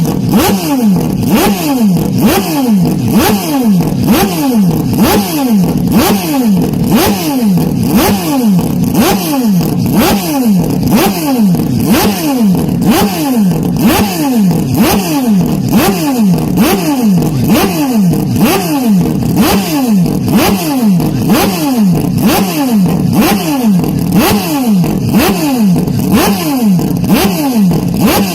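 Loud racing-car engine sound whose pitch sweeps down and back up over and over, about one and a half times a second, with no let-up.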